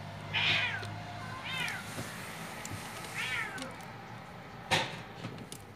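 Domestic cat meowing three times, short high calls that fall in pitch, in a tense face-off with other cats. A brief sharp noise follows near the end.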